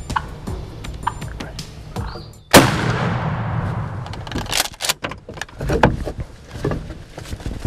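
A single shotgun shot about two and a half seconds in, its report dying away over roughly two seconds: the shot that kills the turkey.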